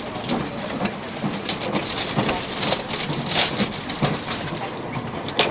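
Running noise of the Argo Bromo Anggrek express train at speed: a steady hiss and crackling rattle made of many small clicks, with one sharper click near the end.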